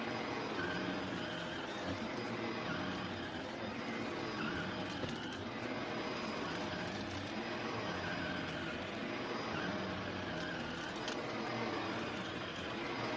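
Vacuum cleaner running steadily, with a couple of small clicks about five seconds in and again near eleven seconds.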